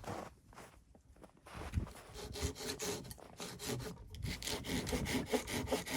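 Hand saw cutting wood in back-and-forth strokes. It starts unevenly and settles into a steady rhythm of about three strokes a second.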